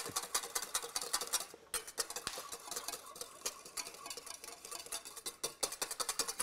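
Wire whisk beating a thin liquid dressing in a small stainless steel bowl: rapid, even clicks of the tines against the metal, with a short break about a second and a half in.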